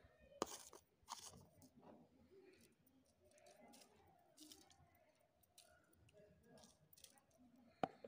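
Quiet handling sounds as salt is sprinkled from a spoon onto raw sliced vegetables in a metal pot: a few sharp clicks and faint crisp rustles.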